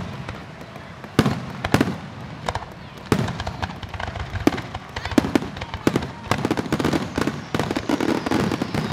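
Aerial fireworks shells bursting in a string of sharp bangs, spaced out at first, then coming thick and overlapping in rapid crackling from about six seconds in.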